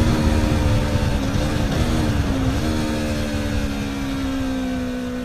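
Aprilia Tuono motorcycle engine running at a steady, slowly falling pitch, with a few brief dips in the first half, gradually fading away.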